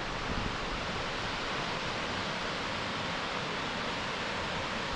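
Kirifuri Falls waterfall: a steady, even rush of falling water.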